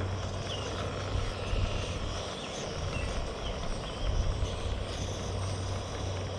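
Steady low rumbling drone with faint bird chirps over it.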